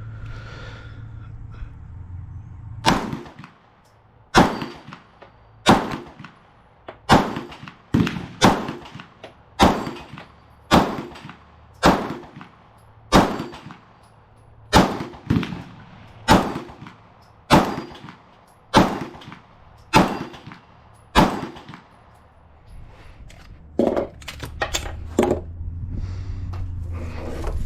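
9mm Glock 19-pattern pistol firing slow single shots, about sixteen of them at a steady pace of roughly one every second and a half. A few quieter, quicker cracks follow near the end.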